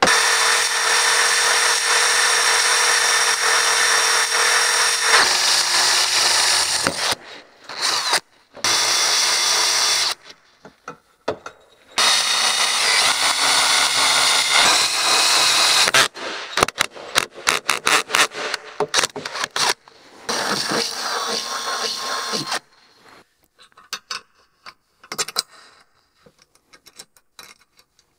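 Cordless DeWalt 20V drill boring out a bolt hole in a steel mounting bracket: long steady runs of the motor and bit grinding through metal, broken by pauses, then a string of short trigger bursts. Near the end, faint clicking of nuts and bolts being handled.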